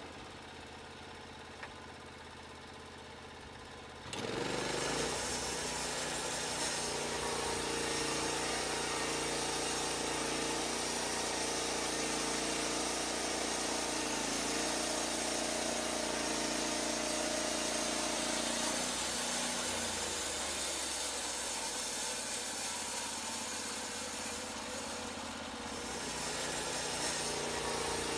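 Norwood Lumber Pro band sawmill at work: a small engine runs quietly, then about four seconds in throttles up and runs loud as the band blade saws through a log, with the engine pitch shifting a couple of times and easing briefly near the end.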